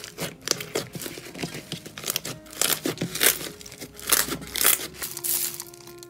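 Glossy purple slime being pressed and squeezed by hand, giving a dense run of irregular crackling clicks and pops.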